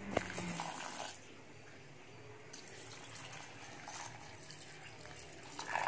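Water poured from a steel vessel into a steel bowl of idli rice and split urad dal, splashing and trickling onto the grains to soak them, strongest in the first second. A brief louder sound comes just before the end.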